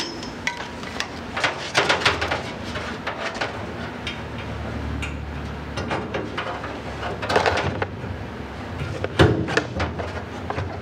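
Short bursts from an air-powered tool on a coiled air hose working on steel windshield support rods, among repeated clicks, clanks and knocks of metal parts being handled.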